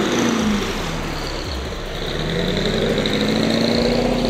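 The Scania Chimera truck's 1,000-cubic-inch V8 running hard during a burnout, with its tyres spinning on tarmac. Its pitch drops about half a second in, then climbs again from about two seconds and holds high near the end.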